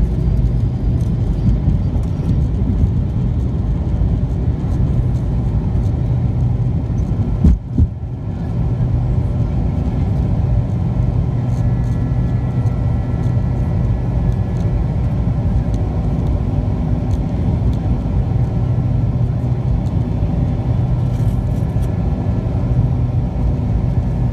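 Cabin noise of a McDonnell Douglas MD-88 at takeoff: the steady roar and rumble of its rear-mounted Pratt & Whitney JT8D turbofans at takeoff power as the jet leaves the runway and climbs. A brief knock about seven and a half seconds in.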